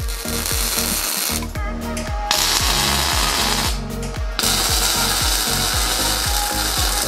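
Wire-feed (MIG) welder arc crackling and hissing as steel frame tubing is welded, in three runs with short pauses between them. Background music with a steady beat plays under it.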